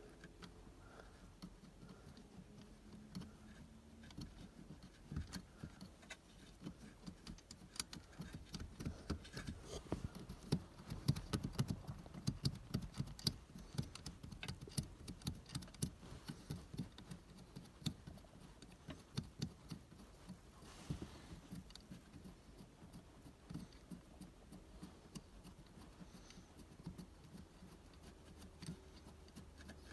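Faint, irregular small metallic clicks and taps of a nut and hand tools on shifter parts as the nut is threaded on and tightened. They are busiest around the middle and sparser toward the end.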